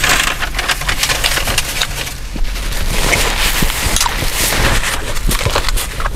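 Paper sandwich wrapper and paper napkin crinkling and rustling close to the microphone, a steady run of crackles while a grilled cheese sandwich is handled and eaten.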